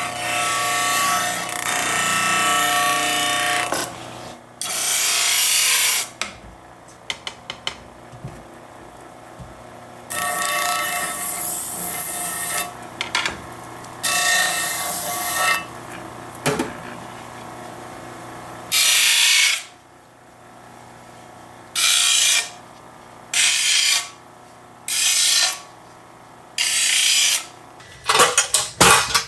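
Power tool working quarter-inch walnut sheet: a steady run with a motor whine for the first few seconds, then a string of separate bursts, each a second or two long, with short pauses between.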